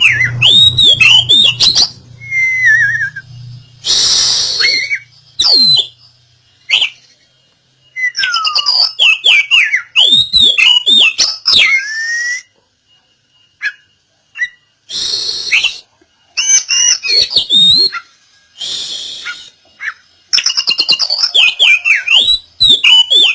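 Oriental magpie-robin singing in fast, varied phrases of whistles and chirps, broken up by harsh rasping calls and short pauses. This is full, energetic song of the kind played as a lure to coax a silent magpie-robin into singing.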